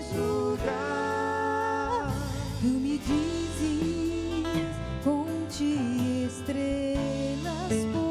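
A woman singing a Portuguese-language Christian worship song with a live band of guitars, bass, keyboard and drums, drawing out long held notes with a waver in the voice.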